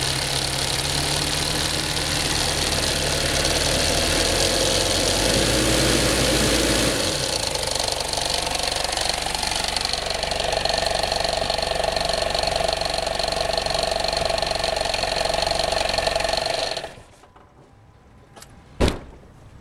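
Toyota 2L-TE 2.4-litre four-cylinder turbodiesel running with an abnormal sound, described as bad after several hours of highway driving. Its note shifts about a third of the way in. The sound stops abruptly near the end, followed by a single sharp click.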